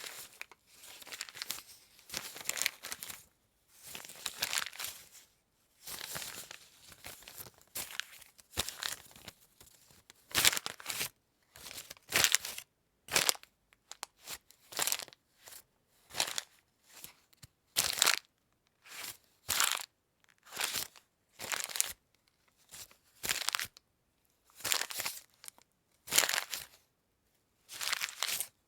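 Paper being crunched and crumpled by hand: a long run of crackling, rustling bursts, each a second or less with short pauses between, longer and more drawn out at first and shorter and sharper later on.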